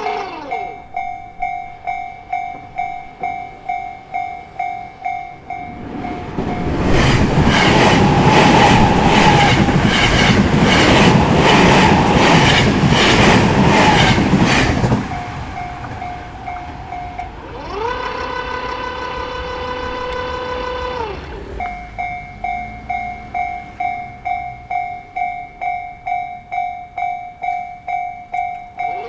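Japanese level crossing warning bell ringing steadily at about two strokes a second, with a Tobu Isesaki Line train passing over the crossing. The train's loud run from about 7 to 15 s has its wheels clattering rhythmically over the rail joints. A brief pitched whine rises, holds and falls away near the 20-second mark before the bell carries on.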